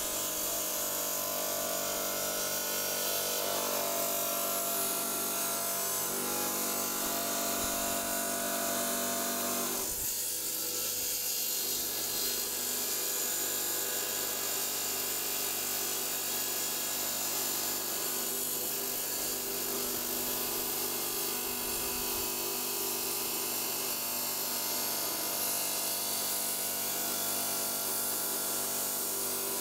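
Power saw cutting a slice from an agate nodule: a steady motor hum with the blade grinding through the stone, its tone shifting about ten seconds in.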